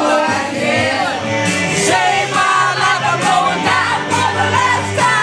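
Music with several people singing loudly along into microphones, with some shouting.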